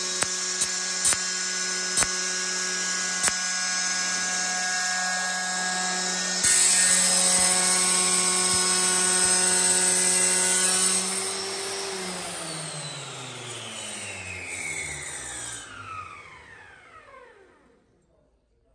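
Shijing 9063 rail tile cutter's electric motor and stock diamond disc running while wet-cutting porcelain stoneware, with a few sharp ticks in the first few seconds. About six seconds in the sound gets louder and brighter. From about eleven seconds the motor's whine falls steadily in pitch as it winds down after switch-off, fading out near the end.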